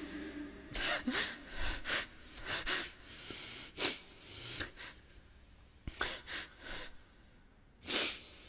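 A man sobbing and sniffling into a close microphone: a string of short sniffs and catching breaths, with a quieter stretch before a louder gasp near the end.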